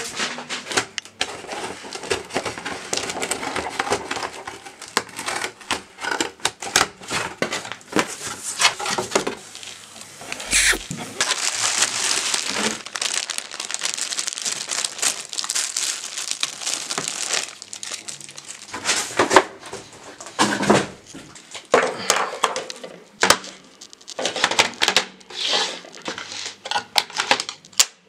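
Plastic bag crinkling and rustling as it is handled, with scattered clicks and knocks of objects being moved about.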